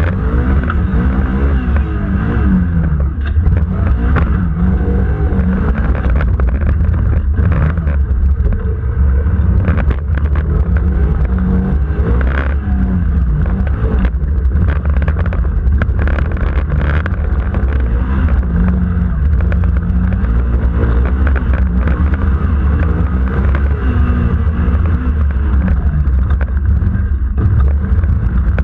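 Suzuki off-road vehicle's engine running loud, revving up and down again and again as it drives a rough dirt course, with occasional short knocks.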